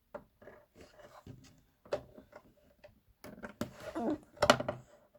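Irregular clicks, taps and knocks from a subwoofer's cabinet and parts being handled and pried at, scattered at first and then a denser, louder run of knocks in the last two seconds.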